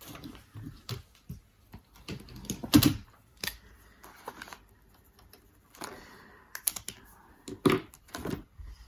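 Paper and plastic being handled: a clear plastic zip pouch of banknotes and a card in a ring binder, giving a scatter of short sharp clicks and taps with light rustling between, the loudest about three seconds in and again near the end.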